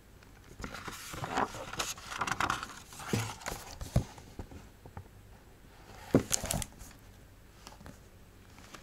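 A hardcover picture book being handled: paper rustling as the pages are turned, a sharp knock, then a louder flap and tap about six seconds in as the book is closed.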